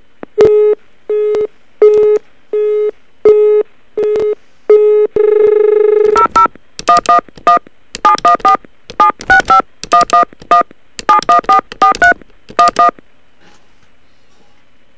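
Telephone line beeping about twice a second, then one longer tone, followed by a run of touch-tone (DTMF) keypad presses in quick groups as a phone number is dialed.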